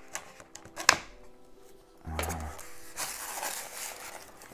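A knife cutting the packing tape on a cardboard box: a sharp click about a second in, then a knock and a scraping, slitting noise from about two seconds in. Soft background music underneath.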